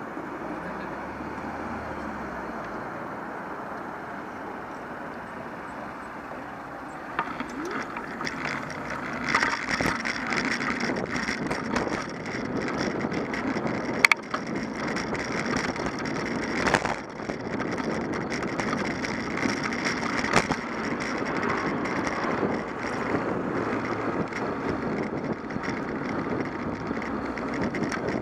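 Street traffic noise while the bicycle stands at a junction. About seven seconds in, the bicycle rides off and the rest is louder road noise with the bike and its camera mount rattling over the pavement, marked by a few sharp knocks from bumps.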